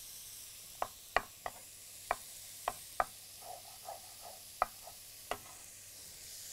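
Chopped onions frying with a faint sizzle in a stainless steel pan, broken by about eight sharp, irregularly spaced knocks of a cooking utensil.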